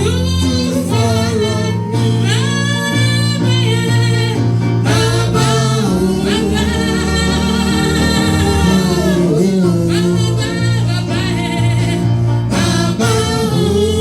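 Gospel worship music: a sung melody with gliding, held notes over a steady instrumental accompaniment with sustained bass.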